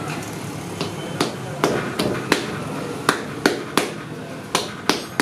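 Hands slapping and patting a stuffed dough ball flat on a floured work surface. Sharp slaps begin about a second in and come irregularly, roughly two a second.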